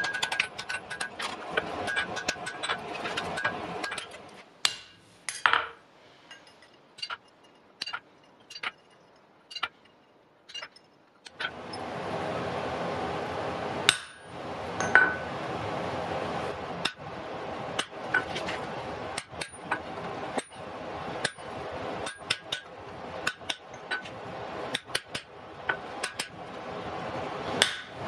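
Hand hammer striking red-hot iron on an anvil, each blow a sharp metallic clink. The blows come quickly at first, grow sparse for several seconds, then go on at about one or two a second over a steady background noise that starts about eleven seconds in.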